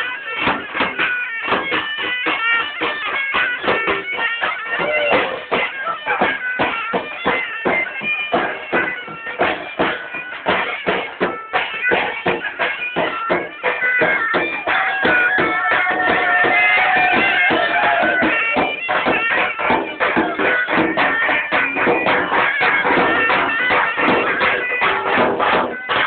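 Music: a reedy wind-instrument melody held over fast, dense percussion.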